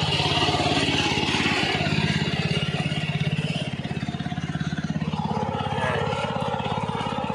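Gasoline engine of an ASIA walk-behind hand tractor running steadily, with an even, rapid beat of firing pulses.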